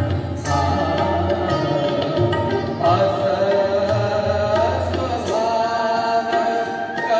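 Devotional song with tabla accompaniment: a sustained, gliding melody over a steady drum pulse.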